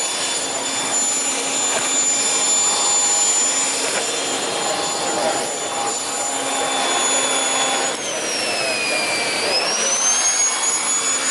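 Numatic Henry Petcare canister vacuum running, with a steady high whine over its airflow noise; about eight seconds in the whine dips in pitch, then climbs back up about two seconds later.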